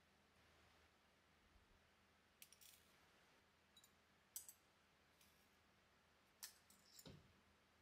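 Faint, scattered small metallic clicks of round-nose jewellery pliers handling a jump ring on a fine gold chain, with a soft thump near the end.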